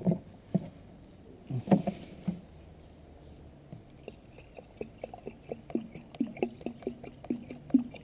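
Tap water glugging out of a plastic jug into a car's plastic coolant expansion tank, a quick run of short pops from about four seconds in. A few knocks in the first two seconds as the gravel-filled tank is handled.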